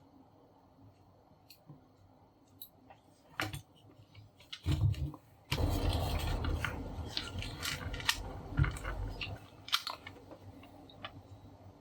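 Scattered small clicks and light knocks of handling, then about five and a half seconds in a few seconds of rustling mixed with clatter and knocks that fades out.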